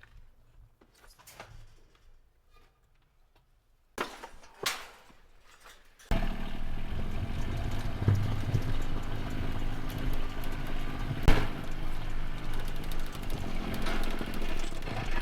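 A few faint knocks, then from about six seconds in an engine running steadily at a constant speed, with one sharp click about five seconds later.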